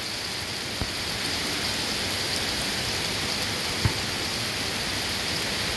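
Small hail coming down hard in a steady hiss, with a couple of sharp ticks of single stones striking.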